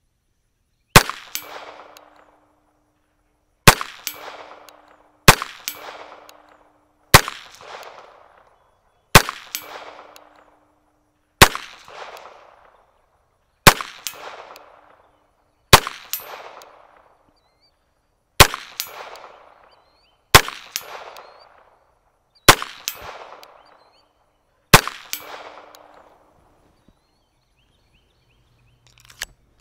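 A Colt Government Model 1911A1 pistol chambered in .22 Long Rifle (made under licence by Walther) is fired twelve times at an unhurried pace, about one shot every two seconds. Each shot is a sharp crack with a short fading echo, and a brief ringing tone lingers after several of them.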